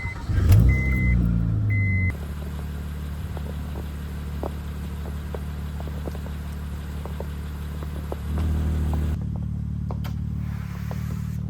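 A car engine starts about half a second in and settles into a steady idle, with three short electronic chime beeps in the first two seconds.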